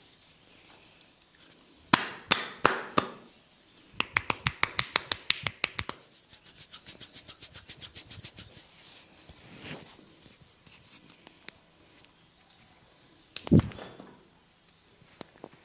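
Barber's hands tapping and slapping on a person's head and forehead during a massage. A few loud slaps come about two seconds in, then a quick even run of taps about six a second, then a softer run, and one more loud slap near the end.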